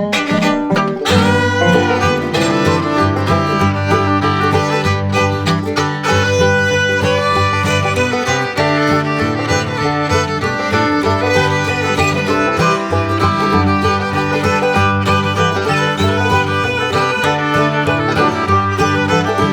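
Instrumental music: a fiddle playing over plucked string accompaniment, continuing steadily.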